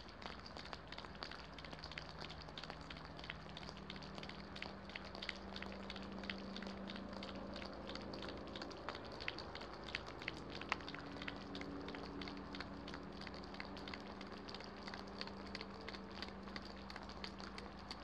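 Light rain, with many sharp ticks of drops striking close by over a steady hiss. A faint low hum runs underneath.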